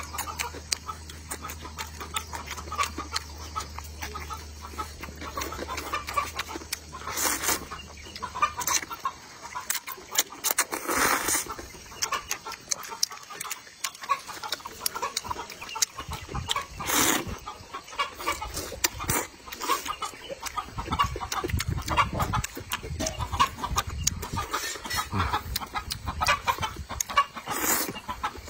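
Chickens clucking while rice noodles are slurped and chewed close to the microphone, with a few louder slurps. A low hum stops about a third of the way in.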